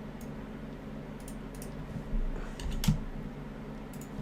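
A few scattered keystrokes on a computer keyboard, the loudest near three seconds in, over a low steady hum.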